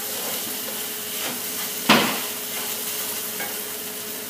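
Diced peppers and onions sizzling steadily in a non-stick wok while being stirred with a plastic spatula, with one sharp knock against the pan about two seconds in.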